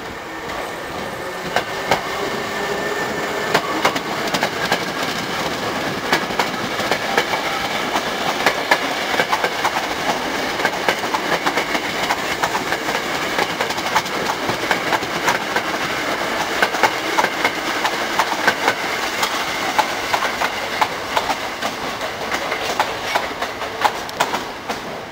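Hankyu 5300 series electric train pulling out close by, its resistor-controlled traction motors whining and rising slowly in pitch as it gathers speed, with the wheels clattering rapidly over rail joints and points. An Osaka Metro 66 series train runs in on the next track at the same time.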